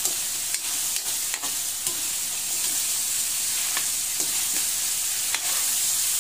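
Chicken pieces frying with a steady sizzle in a metal wok while a metal ladle stirs them, its edge scraping and clicking against the pan about seven times.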